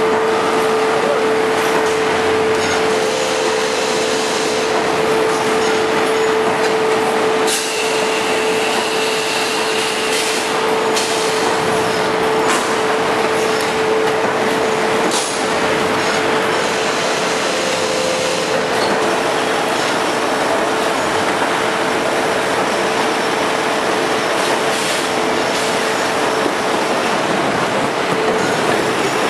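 Veneer composer (core veneer jointing machine) running: a steady mechanical clatter over a constant hum, with a few sharp clacks now and then.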